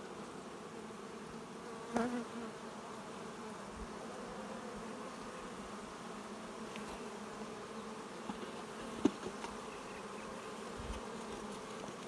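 Steady hum of many honey bees over an open, crowded hive box. Two brief knocks cut through it, about two seconds in and again near nine seconds.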